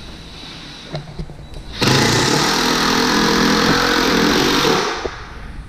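Cordless drill/driver running for about three seconds, starting about two seconds in, as it drives a screw into a wooden threshold board.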